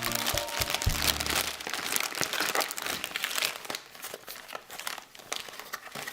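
Packaging wrapper crinkling and crackling as a Star Wars Super Egg is unwrapped by hand, most busily in the first few seconds and sparser toward the end, over background music.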